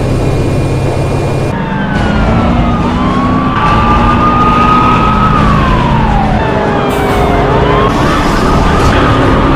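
Police siren wailing, its pitch slowly rising, holding and falling, over a vehicle engine running. The sound changes abruptly about a second and a half in.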